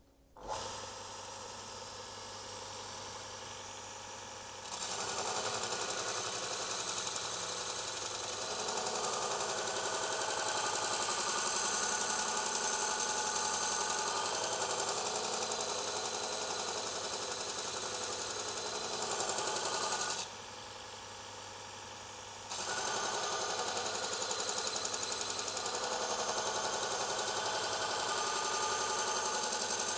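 Robert Sorby ProEdge belt linisher switched on and running, then a carving axe's steel edge ground against its fresh belt in a loud steady hiss starting about five seconds in. About two-thirds of the way through the grinding stops for about two seconds, leaving only the motor running, then resumes.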